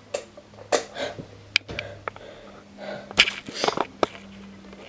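A person's short, sharp breaths and sniffs, with a single click about a second and a half in, over a faint steady hum.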